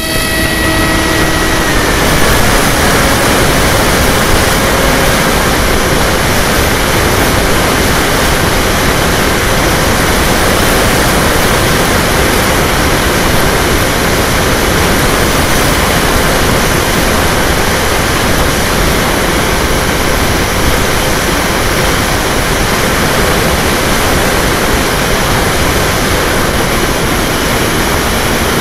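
Model seaplane's motor and propeller running steadily at high power in flight, under a loud rush of wind over the onboard microphone. A faint whine drops slightly in pitch about two seconds in, then holds steady.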